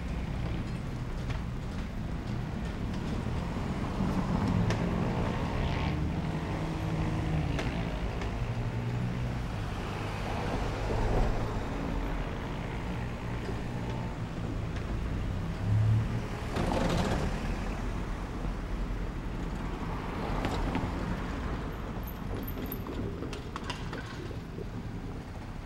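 Road traffic driving past: a box truck, a minibus van and cars going by one after another, their engines humming, with several passes swelling up and fading.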